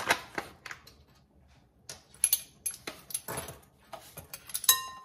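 Stainless steel measuring spoons clinking and jangling on their ring while salt is scooped from a paper pouch: a string of light clicks, taps and rustles, with one brief ringing clink near the end.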